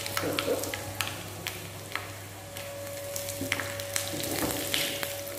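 Dried red chillies and popping mustard seeds sizzling in hot coconut oil in a small tempering pan, with scattered crackles and pops: the tempering for sambar.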